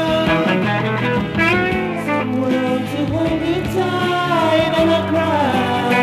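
Pop-rock band recording with electric guitar over a steady bass line, and a melody line that bends up and down in pitch.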